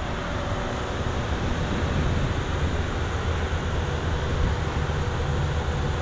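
Tracked soil-nail drilling rig running steadily, its engine and hydraulics making a low rumble.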